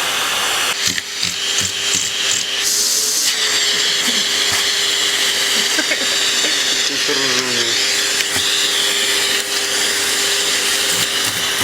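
Vacuum cleaner running steadily, with a steady motor hum under a loud hiss of air.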